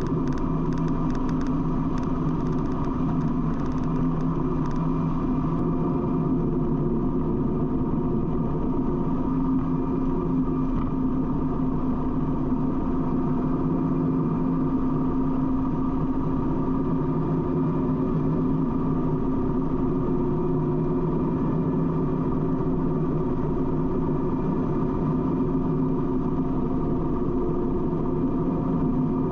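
Harley-Davidson V-twin engine running steadily at highway cruising speed, its pitch holding level, under a constant rush of wind and road noise at the fairing.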